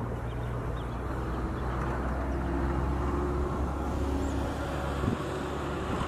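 Steady low engine drone, holding an even pitch throughout.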